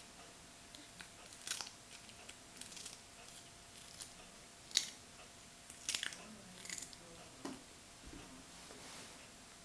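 A cat chewing a slice of raw cucumber: a run of short, crisp crunches and bites at irregular intervals, the loudest about halfway through.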